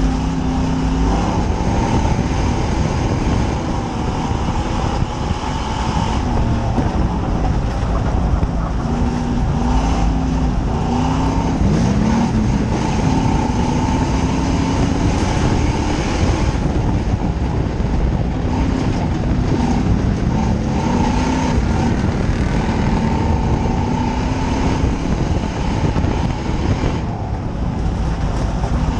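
Dirt oval race car's engine running hard, heard from inside the cockpit, its pitch rising and falling over and over with the throttle, under heavy road and wind noise.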